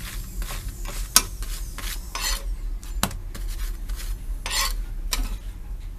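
Metal spatula pressing and scraping an oiled paratha on a non-stick tawa, in short strokes, with a sharp click of the spatula on the pan about a second in and another about three seconds in. The paratha sizzles faintly as it fries in oil.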